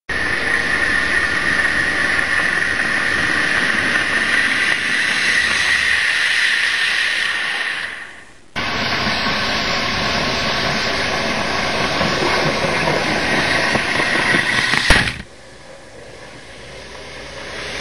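Model train running along its track: a steady motor whine over wheel rumble. It drops away about eight seconds in and comes back abruptly, then falls to a much quieter level after a click at about fifteen seconds.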